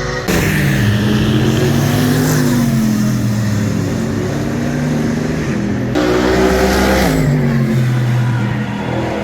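GT3 race car engines passing at speed, the engine note falling in pitch as each car goes by. A second car rushes past about six seconds in.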